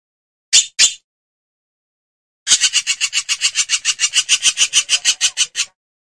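Hornbill calling with harsh rasps: two short rasps, then about a second and a half later a long run of rapid rasping pulses, about eight a second, lasting about three seconds.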